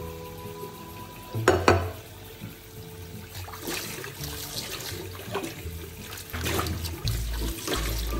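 Tap water running into a glass bowl of sliced potatoes while hands swish and rub the slices, rinsing off the starch. Two sharp knocks about a second and a half in are the loudest sounds.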